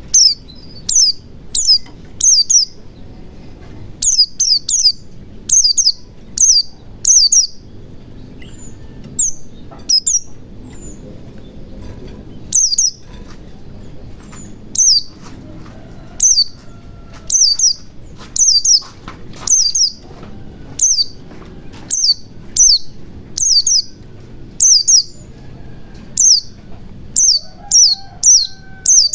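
A white-eye (pleci) singing: short, sharp, high chirps that sweep downward, in quick clusters of two or three, repeated about every second.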